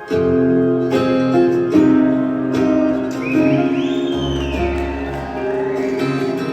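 Live band music starts abruptly and loudly, with sustained plucked guitar notes over a bass line. A high rising-and-falling glide is heard about three seconds in.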